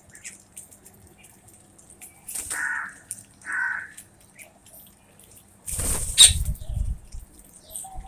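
A flock of bank mynas feeding on grain on concrete: two short harsh calls about two and a half and three and a half seconds in, faint ticks of beaks pecking, then a brief, louder flurry of flapping wings about six seconds in.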